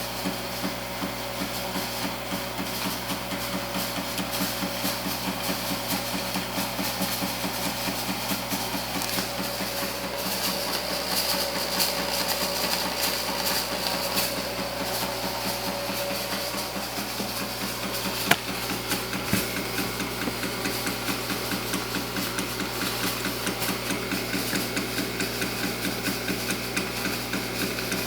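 Antari Z-350 haze machine running with a rapid, steady clicking, a noise the owner is unsure is normal. One louder single click stands out about 18 seconds in.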